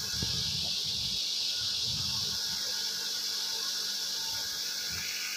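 A steady high-pitched hiss, with low rumbling noise in the first two seconds.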